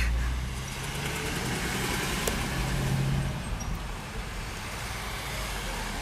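Car engine running with steady road and traffic noise. A louder low rumble at the start dies away within the first second.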